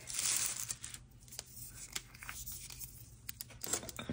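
Tissue packing paper rustling and crinkling under hands for about a second, then a few light clicks and taps.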